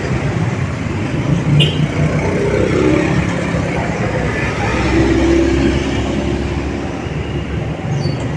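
Busy street ambience outside a market: motor-vehicle engines passing steadily over the murmur of voices of vendors and shoppers.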